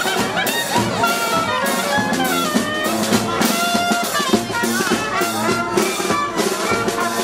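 Brass band playing with trumpets, trombones and drums, loud and continuous, with a steady drum beat under the horns.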